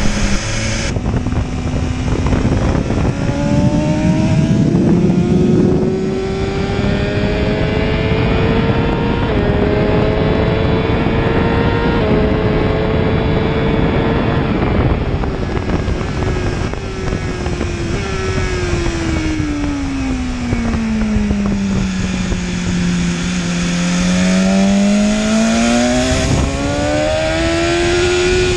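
Inline-four engine of a 2019 BMW S1000RR with an Akrapovic exhaust at full throttle, its pitch climbing through quick upshifts for about fifteen seconds, then falling steadily as the bike slows and climbing again near the end. Heavy wind noise at racing speed runs under it.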